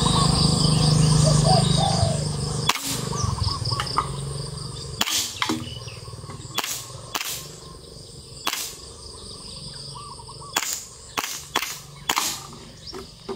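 WE M1911A1 gas blowback airsoft pistol firing single shots, about nine sharp cracks at uneven intervals, with birds chirping in the background. A steady low hum fills the first couple of seconds and stops just before the first shot.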